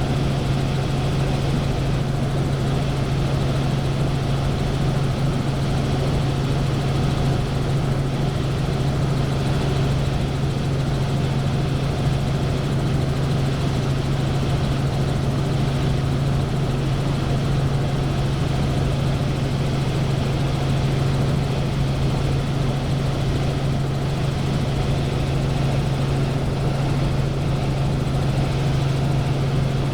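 Helicopter in flight, heard from inside the cabin: a steady, unbroken drone of engine and rotor with a strong low hum.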